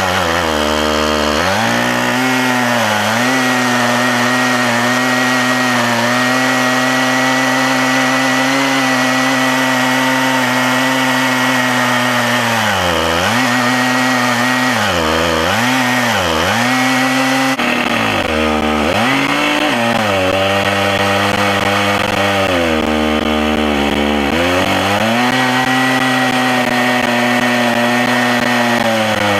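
Stihl MS880 chainsaw's large two-stroke engine running at full throttle while ripping lengthwise through an oak log on an Alaskan chainsaw mill. Its steady pitch sags and recovers several times in the middle as the engine bogs under the load of the cut.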